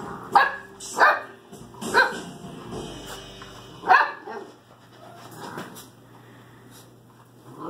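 Bullmastiff puppies barking: four short, sharp barks in the first four seconds, unevenly spaced, then quieter.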